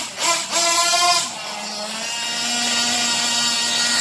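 3.5 cc two-stroke nitro-methanol engine of a Caster Racing ZX2.0 RC buggy being driven at high revs: two sharp throttle surges in the first second, then a steady high-pitched drone. The engine is freshly broken in and tuned.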